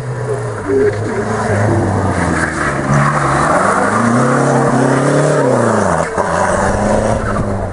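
Renault 5 GT Turbo rally car's engine revving hard through a hairpin. The pitch rises and falls several times as the driver brakes, turns and accelerates, with a sharp drop about five seconds in before it climbs again.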